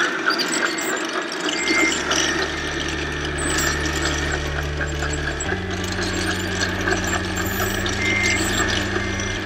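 Radio-controlled scale Liebherr 634 crawler loader working, its electric drive and hydraulics making a geared whine with ratchety clicking. A steady low hum comes in about a second and a half in and steps up in pitch about halfway through.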